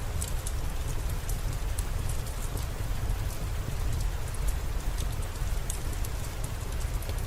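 Steady rain falling, a dense even hiss with a low rumble, with scattered sharp ticks of individual drops.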